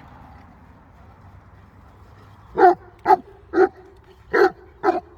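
A mastiff-type dog barking five times in quick succession, starting about halfway in, short barks roughly two a second.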